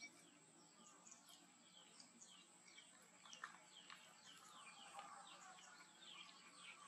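Near silence, with faint small-bird chirps in the background: many short, downward-sliding chirps, several a second, over a thin steady high-pitched tone.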